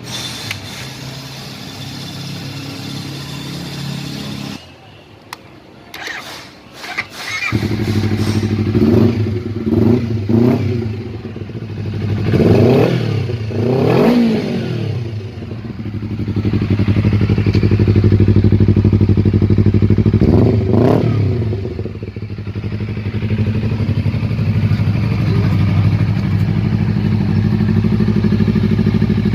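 Honda CBR250RR motorcycle engine starting about seven seconds in after a few clicks, revved up and down several times, settling into a steady idle, and revved once more about twenty seconds in.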